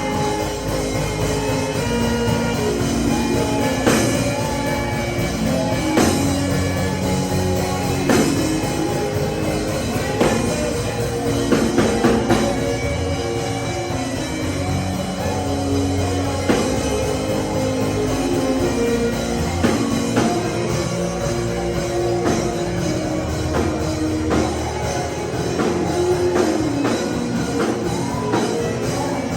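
Band music with drums, steady throughout, with a strong hit about every two seconds in the first half.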